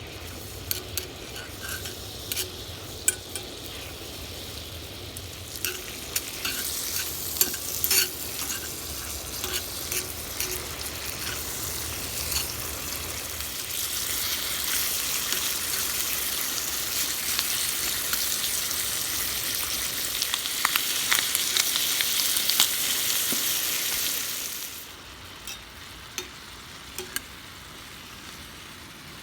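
Food sizzling in a frying pan while a utensil stirs and scrapes with short clicks. The sizzle grows louder about halfway through and stops abruptly near the end.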